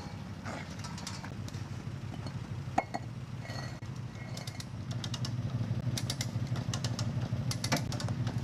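A vehicle engine idling steadily, growing louder after about five seconds in, with scattered light metallic clinks, several in quick succession near the end.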